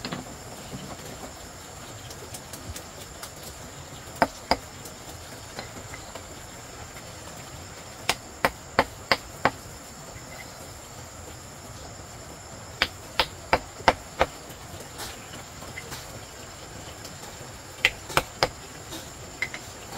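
Sharp knocks of a hand tool striking, in quick runs of two to five strikes a few seconds apart, over a steady high insect buzz.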